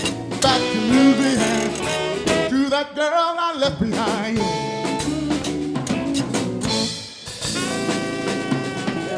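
Live zydeco band playing, with pitched instruments over a steady drum beat.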